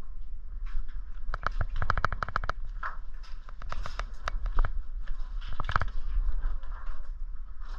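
Airsoft guns firing: a rapid burst of about a dozen shots a little over a second in, then scattered single shots and a shorter burst near the six-second mark.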